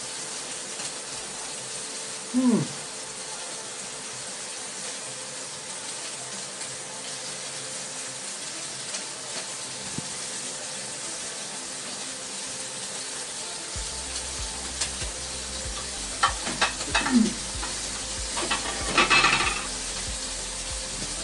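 Pork steaks sizzling steadily in a hot wok, with a short low voice sound about two seconds in. Near the end come a few clinks of a utensil against the pan, and a low hum comes in about two-thirds of the way through.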